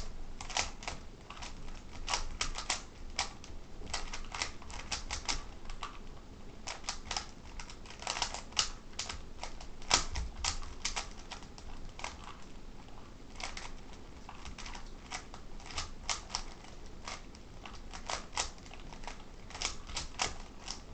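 Rubik's cubes being turned fast while being solved: irregular plastic clicking in quick runs, with short pauses between them.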